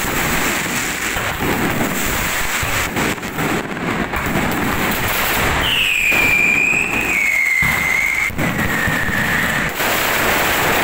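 Electronically fired fireworks going off without a break: a dense crackling hiss of spark fountains scattered with many sharp pops. About six seconds in, a long whistle slides slowly down in pitch for several seconds.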